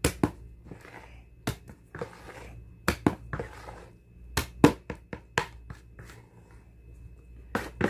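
Hand mixing a wet bait dough in a plastic basin: irregular knocks and taps against the plastic, with soft rustling and scraping of the mixture in between.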